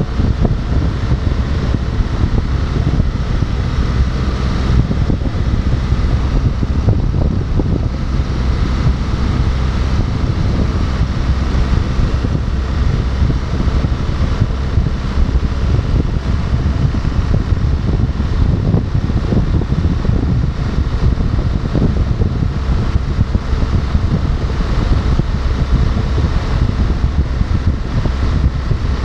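Motorcycle cruising steadily at highway speed: constant wind rush over the microphone, with the engine and road noise underneath.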